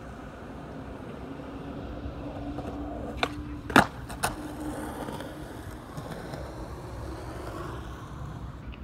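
Skateboard wheels rolling on concrete with a steady hum. About three seconds in comes a trick: three sharp clacks of the board about half a second apart, the middle one loudest. Then the board rolls on and fades.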